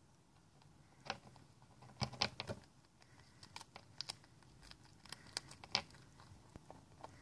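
Rabbit nibbling and crunching at a bit of food on wooden deck boards: faint, short crisp clicks in several clusters, the loudest about two seconds in.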